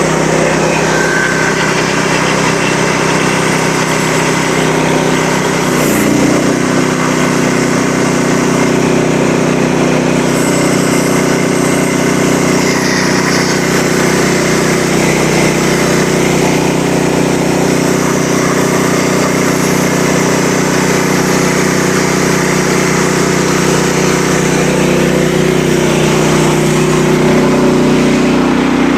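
Small gasoline engine of a Frontier OS27 portable sawmill running steadily, its pitch shifting slightly about six seconds in.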